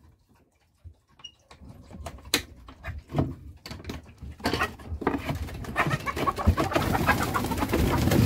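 A few knocks and clicks as a small wooden chicken-coop pop door is unlatched and swung open, then chickens clucking and murmuring in a steadily growing chorus as the hens come out.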